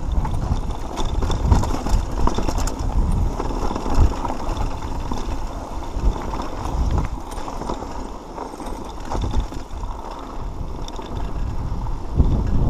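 Mountain bike riding over a rocky dirt trail: tyres on loose dirt and stones, with irregular rattles and knocks from the bike over bumps and a steady rumble of wind on the microphone.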